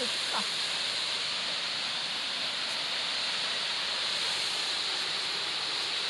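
Waterfall: a steady, even hiss of falling water.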